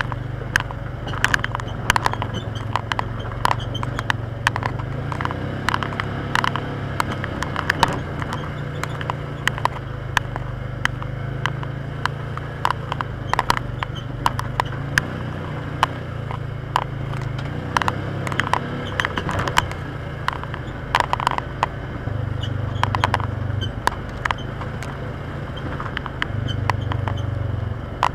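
Polaris Ranger side-by-side engine running with a steady low drone, a little louder twice near the end, with frequent sharp clicks, rattles and knocks over it.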